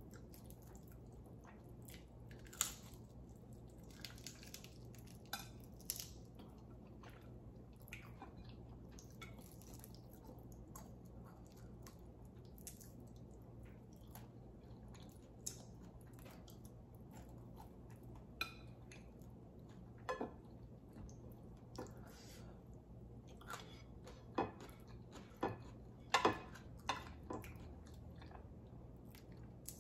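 Mouth sounds of eating fried fish by hand: soft chewing with scattered short, sharp lip smacks and finger-licking clicks, coming more often near the end.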